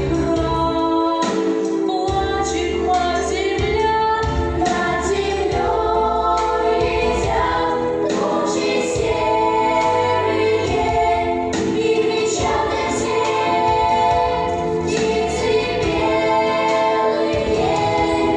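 Children's choir singing a song in unison over instrumental accompaniment.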